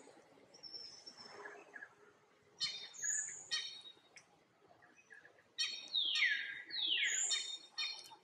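Young long-tailed macaque giving short, high-pitched squeals: a few about a third of the way in, then a quicker run near the end that includes two squeals sliding sharply down in pitch.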